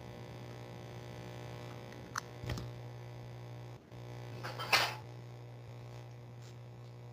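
Steady low electrical hum of room tone, with two small clicks a little over two seconds in and a short, louder scratchy knock just before five seconds.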